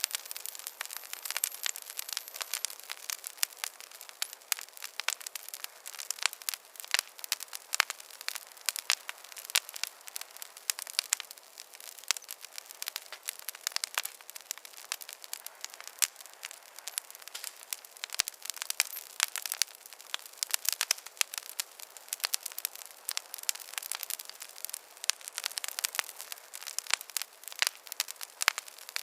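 Wood fire crackling in a fireplace: a dense, irregular run of sharp pops and snaps over a soft hiss, with no low rumble.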